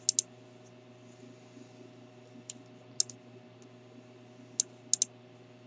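Computer mouse clicks: a quick pair at the start, single clicks about two and a half and three seconds in, and another quick pair near the end, over a faint steady hum.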